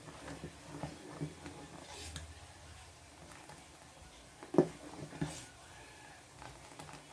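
Steel spoon stirring boiling milk and rice in a steel pot, with small scattered clinks and one sharp knock of the spoon against the pot about four and a half seconds in.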